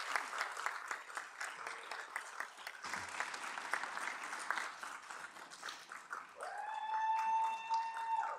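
Audience applauding in a council chamber. Near the end, a single high tone slides up and is held for about two seconds over the thinning applause.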